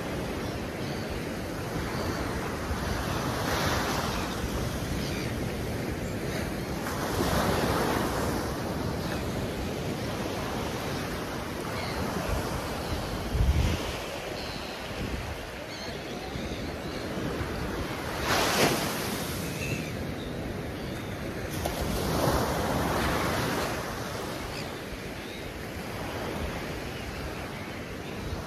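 Surf breaking on a sandy beach: waves surge in every few seconds over a steady wash, with wind buffeting the microphone and a single low thump about halfway through.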